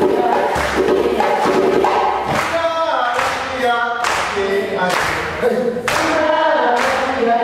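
Choir-like group singing with a wavering, chant-like melody, cut by about five sharp hits.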